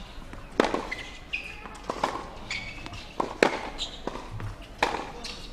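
Tennis rally on a hard court. Sharp racket-on-ball hits come about every second and a half, with softer ball bounces between them.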